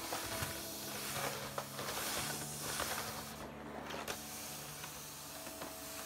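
Vacuum cleaner floor head pushed back and forth over laminate flooring, its suction hiss swelling and fading with each stroke and briefly dropping away in the middle, with a few light clicks. Soft background music with held notes underneath.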